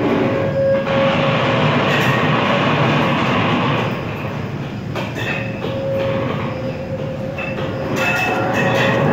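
Live experimental electronic noise music: a loud, dense wash of rumbling noise with a steady mid-pitched tone that fades in and out, and short high tones near the middle and again near the end.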